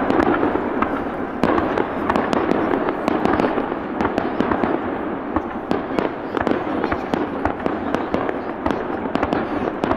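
Fireworks display going off in a dense, continuous run of pops and crackles, with no pause.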